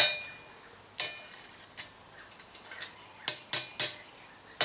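Hammer blows on hot steel resting on an anvil, each strike ringing briefly. There are a few spaced strikes, then three quick ones near the end, as a freshly welded screw key is knocked square.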